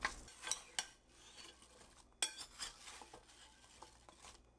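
Light, scattered clinks and knocks in a bowl, about half a dozen short sharp hits, as cut apple slices are put in and handled.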